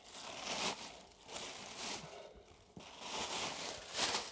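Tissue paper crinkling and rustling as it is peeled back and lifted off the contents of a shoe box, in about four rustling bouts with the loudest near the end.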